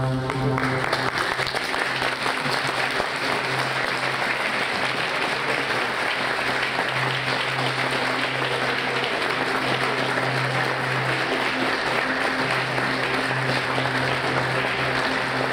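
Audience applauding, a dense steady clapping that takes over about half a second in as a held musical chord breaks off. A low sustained musical note continues underneath the applause.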